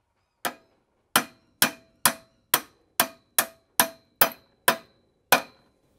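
Heavy hammer striking a socket that sits on a universal joint's bearing cap, driving the cap through the driveshaft yoke held in a vise. Eleven blows about two a second, the first one lighter, each with a short metallic ring.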